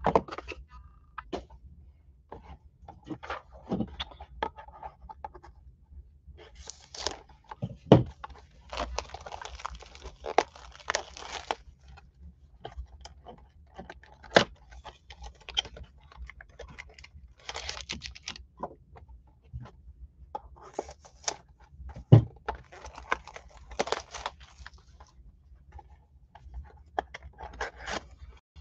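Hands handling and opening a cardboard Topps Triple Threads card box: scraping and tapping cardboard, a few sharp knocks, and spells of crinkling and tearing from the silver foil-wrapped pack inside.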